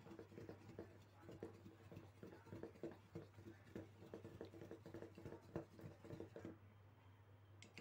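A pencil rubbed rapidly back and forth against the opener tab of an aluminium drink can: faint, quick scraping and clicking strokes, over a steady low hum.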